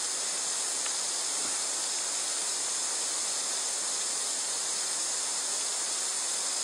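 Steady outdoor background hiss in the bush, strongest in a high band, with no distinct events.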